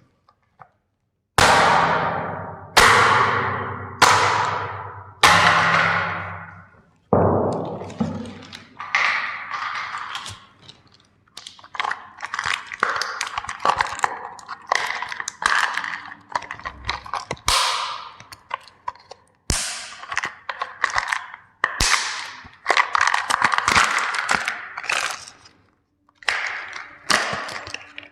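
Plastic toy steam engine trains being crushed: a series of loud, sharp cracks, each trailing off in about a second of crackling, then quicker runs of crackling and snapping as the plastic breaks up.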